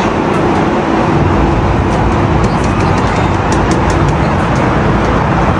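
Wind buffeting a phone's microphone in an open Ferris wheel gondola: a loud, steady rumble, with a few faint clicks.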